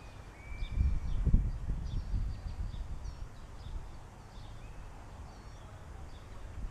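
Small birds chirping in short, repeated high notes, over low rumbling of wind on the microphone that is strongest in the first couple of seconds.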